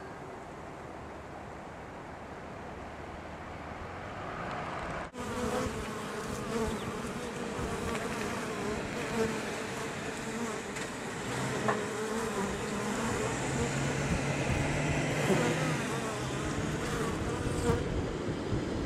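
Many honeybees buzzing around their hive, a dense droning hum that becomes louder and closer after a sudden break about five seconds in.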